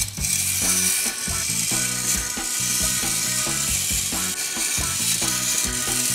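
Clockwork spring motor of a tin wind-up dancer toy running down, its gears whirring and rattling steadily as the toy twirls across the tabletop.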